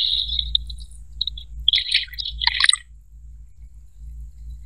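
A cricket's steady trill fades out in the first half second, then a bird gives a quick cluster of chirps about two seconds in, over a faint low rumble.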